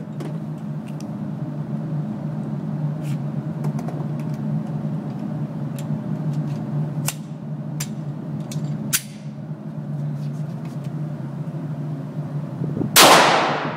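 Steady low hum of an indoor shooting range's ventilation, with scattered sharp clicks and knocks as a Glock 23 is handled and reloaded. One loud, sharp report near the end fades quickly, like a pistol shot.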